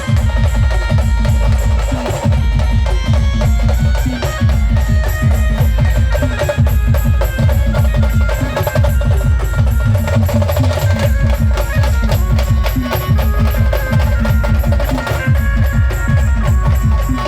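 A village brass band playing an instrumental stretch of a film song: a loud, steady drum and percussion beat carries held melody notes.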